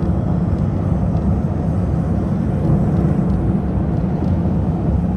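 Car driving on the highway: a steady low rumble of road and engine noise.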